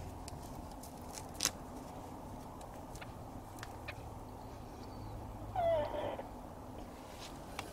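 A Siamese kitten gives one short meow that falls in pitch, a few seconds in. Before it there is a sharp click about a second and a half in, and a few fainter clicks.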